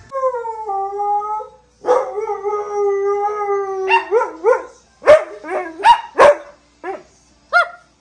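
Husky vocalising while made to wait for a treat. It gives two long howling calls, the first falling in pitch and the second held steady. Then it breaks into a quick run of short yips and barks, each rising and falling in pitch.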